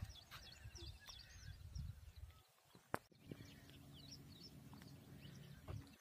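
Faint birdsong: many small chirping calls, over a low rumble of wind or handling noise. A single sharp click about three seconds in, after which a faint steady low hum sets in.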